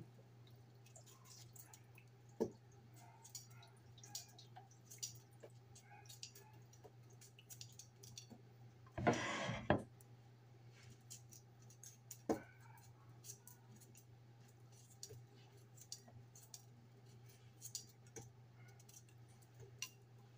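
Faint scrapes and clicks of a knife peeling a sweet potato by hand, with a sharp knock about two seconds in and a louder rasping noise lasting almost a second about nine seconds in. A steady low hum runs underneath.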